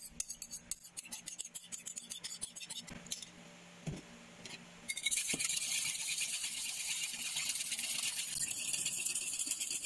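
Whipping cream being whisked by hand with a wire whisk in a glass bowl: a steady, fast rattle of metal against glass that starts about five seconds in. Before it, scattered light clicks and scraping as the cream is poured and scraped out of a small bowl into the glass bowl.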